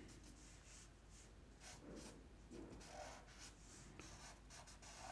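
Faint scratching of a pen on paper: a series of short, irregular strokes as hatching and fur lines are inked in.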